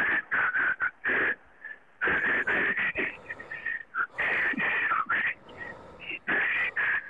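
Mobile phone ringtone, an incoming call repeating its short melodic phrase in groups about every two seconds.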